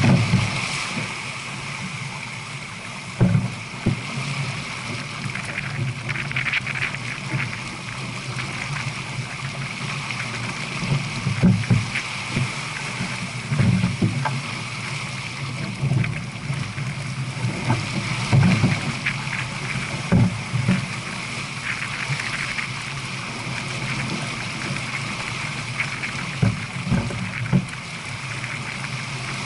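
Water rushing and splashing along the hull of a J/24 sailboat running downwind at about 7 knots, with irregular low thumps every few seconds.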